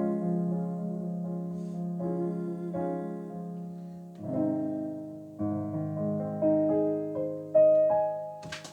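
Slow instrumental close of a song without voice: held chords ringing out, a new chord struck about four seconds in and a few single notes after it, the loudest near the end, followed by a couple of sharp clicks at the very end.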